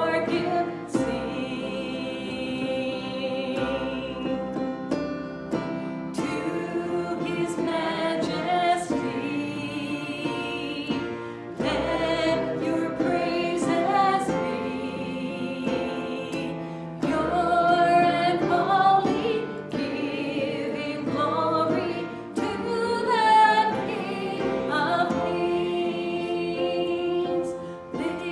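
Music: a group of voices singing with instrumental accompaniment, with held notes that waver and change about every second or two.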